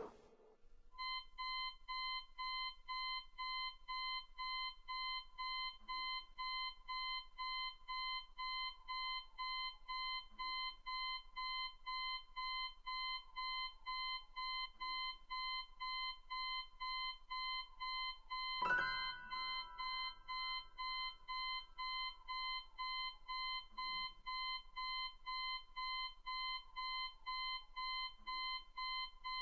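Digital bedside alarm clock going off: a steady electronic beep repeating about twice a second. About two-thirds of the way through, one sudden loud thump with a brief ringing tone sounds over the beeping.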